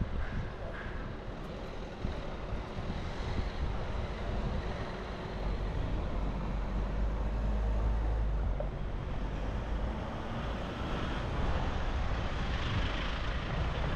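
City street traffic noise from passing vehicles, with a low rumble that swells through the middle and fades again.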